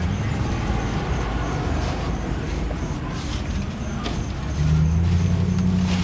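A motor vehicle engine running, a low steady rumble that grows louder and more humming about four and a half seconds in.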